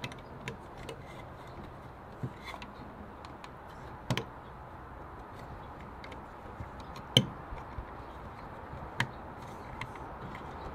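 Scattered light clicks and knocks from a Sealproof plastic weatherproof in-use outlet cover being handled and fitted over a switch-and-receptacle box, with three sharper knocks about four, seven and nine seconds in, over faint steady background noise.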